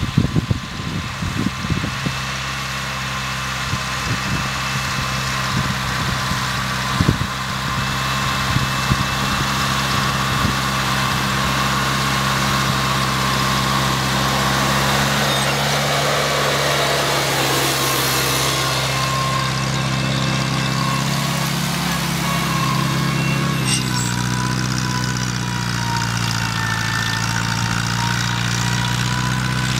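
Farmall Cub tractor's small four-cylinder engine running steadily under load while pulling a plow through the soil, coming close about halfway through and then moving away. A few sharp knocks sound near the start, and the engine note drops slightly about three-quarters of the way in.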